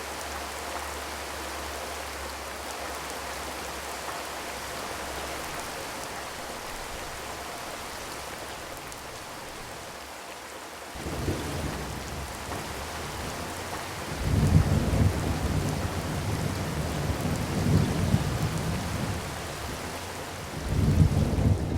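Steady rainfall. From about halfway through come low rolling rumbles of thunder, swelling and fading in several long waves, the loudest near the end.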